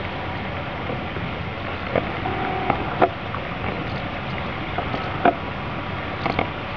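Steady rushing of a fast-flowing river. A few sharp clicks sound about two, three, five and six seconds in, and a brief tone comes between the first two.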